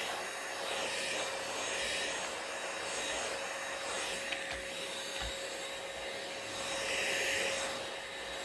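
Stick vacuum cleaner running as it is pushed back and forth over the floor, a steady motor hum under a rushing noise that swells and fades about once a second, loudest near the end.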